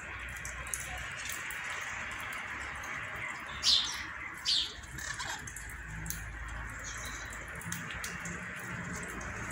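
Indian ringneck parakeets giving two short, loud squawks about four seconds in, a little under a second apart, over a steady faint background hiss.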